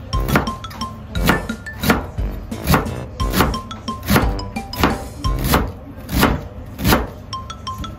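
Background music with a steady beat and a simple melody of short notes.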